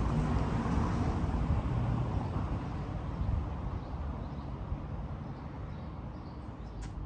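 Outdoor street ambience: a low, noisy rumble that slowly fades, with a single sharp click near the end.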